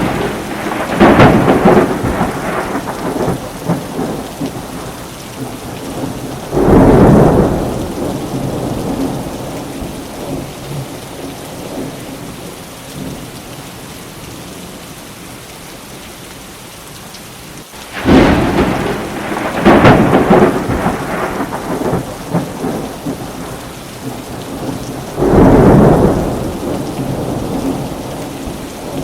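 Steady rain with thunder. Loud claps and rolling rumbles come near the start and about seven seconds in, then again about eighteen and twenty-six seconds in, each dying away over a few seconds, with only the rain between them.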